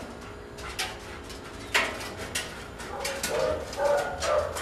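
Several sharp knocks on a metal spiral staircase, then from about three seconds in a German shepherd whining in short, high cries.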